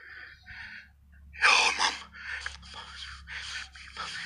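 Breathy gasps and whisper-like voices in short bursts about every half second, with one loud, sharp gasp about a second and a half in, over a low steady hum.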